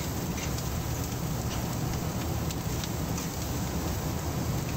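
Steady low rumble of background machinery, with scattered light crackles from a hot charcoal grill.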